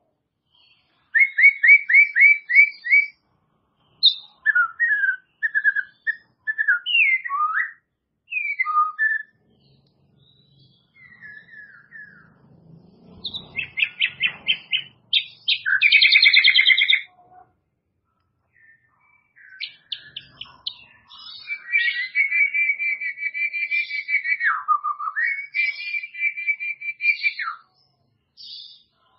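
White-rumped shama (murai batu) singing in separate whistled phrases: a quick run of repeated notes, then varied slurred whistles, a burst of fast notes, and a long fast trill held on one pitch that dips briefly near the end before rising back.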